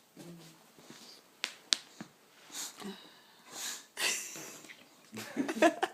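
Boxer dog sneezing several times in a row, short sharp bursts of breath through the nose, the loudest about four seconds in. Two sharp clicks come about a second and a half in.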